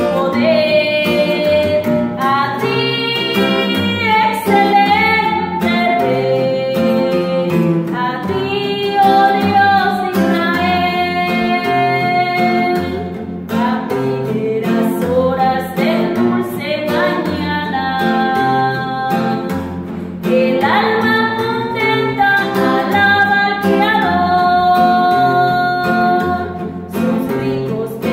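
A woman singing a Spanish-language Christian worship song, holding long notes in phrases, to an acoustic guitar accompaniment.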